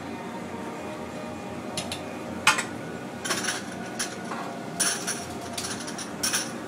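Irregular metal clinks and clanks on a stainless steel work table, the loudest about two and a half seconds in, mixed with short scrubbing sounds of a towel wiping the steel, over a steady hum of kitchen equipment.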